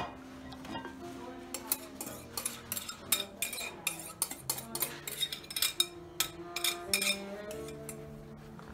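Metal spoon clinking and scraping against a glass bowl as beaten eggs are scraped out of it, many quick irregular clinks, with a sharp knock at the very start. Soft background music with held notes runs underneath.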